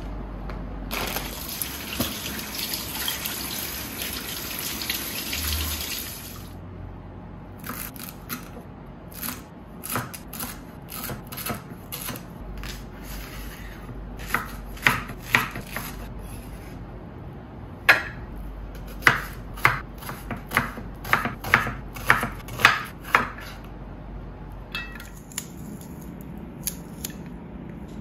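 A tap runs for about five seconds, then a kitchen knife slices leeks on a wooden cutting board: a series of sharp chops, several in quick runs near the middle.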